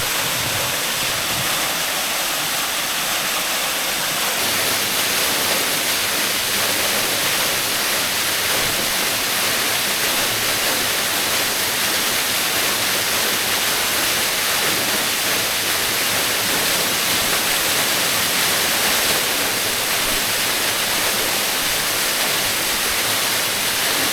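Waterfall's steady, loud rush of falling water.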